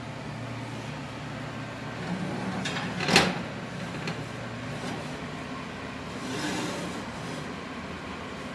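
Cast iron skillet being set onto a metal oven rack: one sharp clank about three seconds in and a lighter knock about a second later, over a steady hum.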